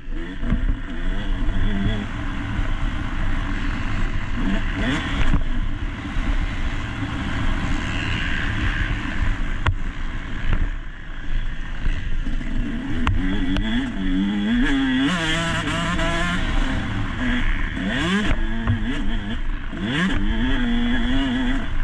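Motocross dirt bike engine revving up and down as it is ridden hard, its pitch climbing and dropping repeatedly with a sharp climb near the end, heard from an action camera on the bike over a steady low rumble.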